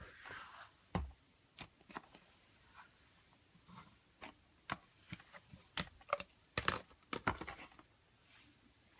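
Slime being handled and pressed: irregular sticky pops and crackles, coming thickest about six to seven and a half seconds in.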